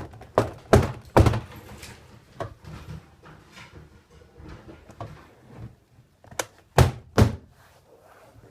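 Hard thuds in a small room, three quick knocks about a second in and three more near the end.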